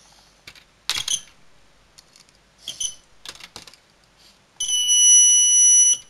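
Small clicks of alligator-clip leads and circuit-kit parts being handled. About four and a half seconds in, the alarm horn sounds: a loud, steady, high-pitched buzzing tone lasting just over a second, then cutting off sharply. The horn goes off with a 100-ohm resistor in place of the tripwire, a failure: the circuit only holds the alarm off at about 0 ohms.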